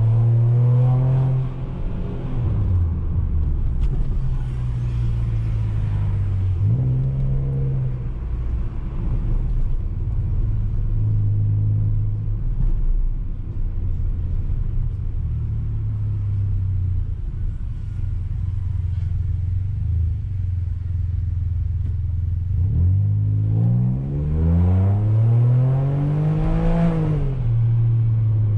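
Ford Ka 1.5 three-cylinder engine and exhaust, its rear muffler replaced by a universal JK sport muffler, heard on board while driving. It runs at a low rumble while cruising, with a short rise in revs about a quarter of the way in. Near the end comes a long rising rev that peaks and then drops away.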